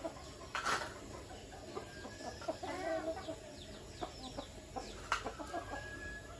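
Flock of chickens clucking in short repeated calls, with faint high falling chirps. Two brief sharp sounds stand out, one near the start and one about five seconds in.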